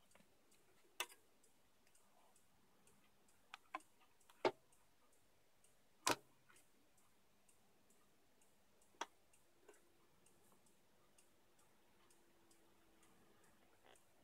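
Sharp clicks and knocks from a freshly lubricated and calibrated Aiwa LX-11 fully automatic turntable as a record is set on the platter and its front-panel buttons are pressed. A faint steady motor hum starts about two-thirds of the way in as the auto-play mechanism begins to cycle, and a faint fast ticking runs underneath.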